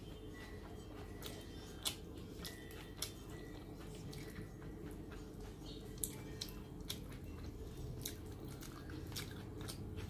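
Close-miked eating sounds: chewing with the mouth closed and fingers squishing and mixing rice and fish curry on a plate, with a few small sharp clicks and smacks, the sharpest about two, three and six seconds in.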